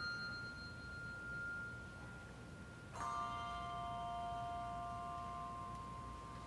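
Handbell sextet ringing sustained chords: a chord rings on and fades from the start, then a new, lower chord is struck about three seconds in and left to ring.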